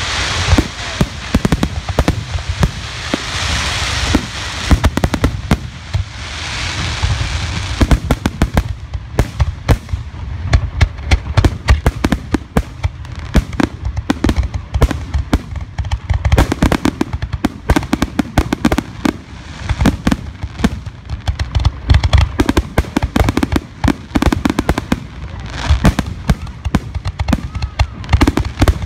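Aerial firework shells bursting overhead in a grand finale barrage, heard from close beneath them: rapid, near-continuous bangs and deep booms. A dense high hiss and crackle runs under the bangs for the first seven or eight seconds.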